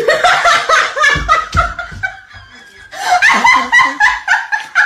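A child laughing in quick, high-pitched bursts, in two bouts with a short lull between them.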